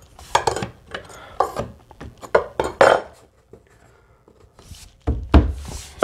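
Engineered hickory stair boards clattering and knocking as they are pushed and seated into place by hand during a dry fit. A run of short clacks and knocks, then a heavier thump about five seconds in.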